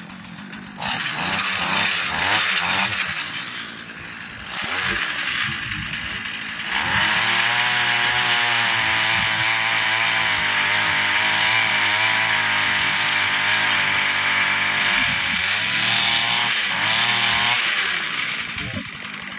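Gas-powered ice auger engine revving in short surges, then running at high revs for about ten seconds as it bores a hole through the river ice, easing back near the end.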